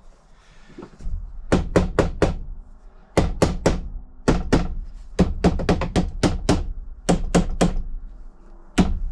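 Rapid sharp knocks of a tool striking stuck interior fittings in a truck cab, in quick runs of three or four with short pauses between, trying to free parts that will not come off.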